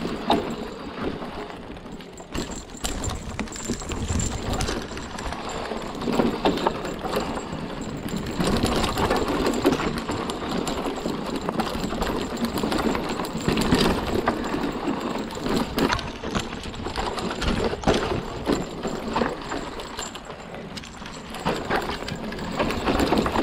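Electric hardtail mountain bike riding down a rough, rooty and rocky trail: tyres rolling over dirt and roots, with many sharp knocks and clattering from the bike over the bumps.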